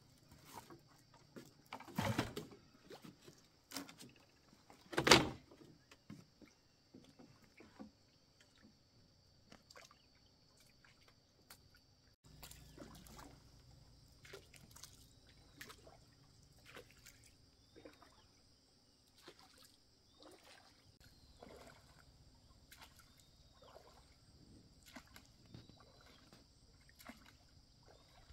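Two loud knocks about two and five seconds in, then the oars of a small wooden rowboat dipping and splashing in rhythmic strokes about once a second as the boat is rowed across calm water.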